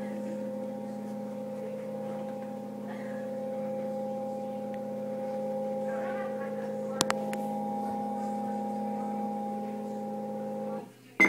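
NordicTrack C900 treadmill running its self-calibration, its incline motor giving a steady hum that cuts off suddenly near the end, followed by a sharp click. A couple of sharp clicks come about two thirds of the way in.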